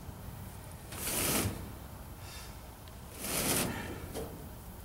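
A man breathing hard, two loud breaths about two seconds apart, winded from lifting and shifting a pickup truck bed.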